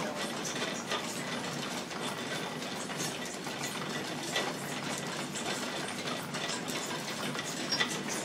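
Belt-driven overhead line shafting and pulleys of an old machine shop running: a steady mechanical clatter with frequent irregular clicks and ticks.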